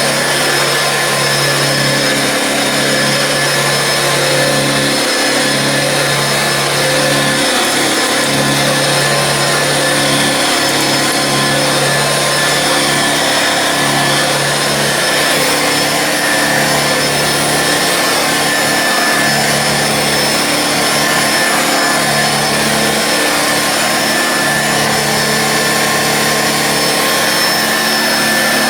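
1955 Hoover Junior 119 upright vacuum cleaner running steadily, its motor and belt-driven agitator sounding nice and smooth on a new drive belt. A low hum under the running comes and goes every second or two.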